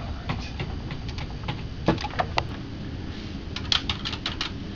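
Computer keyboard keys clicking in scattered single presses, with a quicker run of several clicks near the end, over a steady low hum.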